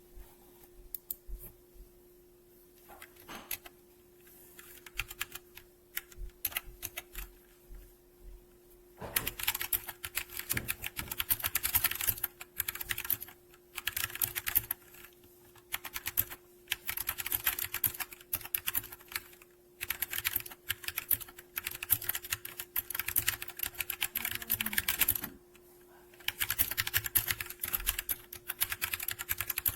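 Typing on a TMKB T68SE 60% mechanical keyboard. Scattered single key clicks for the first several seconds, then fast runs of keystrokes broken by short pauses.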